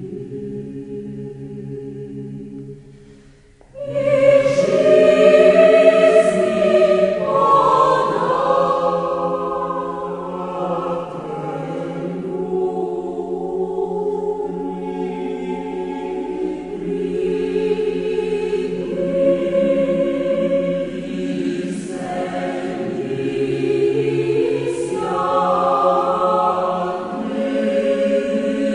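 Orthodox church choir singing a cappella in sustained, chant-like lines. Low voices hold the opening and fade briefly, then the full choir comes in louder and higher about four seconds in.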